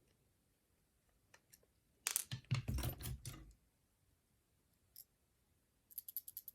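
Padlock being picked open: about two seconds in a sharp metallic clack and thud as the shackle springs open, with a second of metal clatter, then a single click and a quick run of small ticks near the end.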